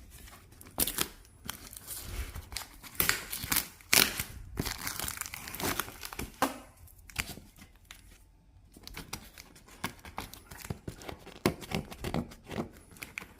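Vacuum cleaner packaging being torn open by hand, with no knife: irregular rips and crinkling, coming in short bursts with pauses between.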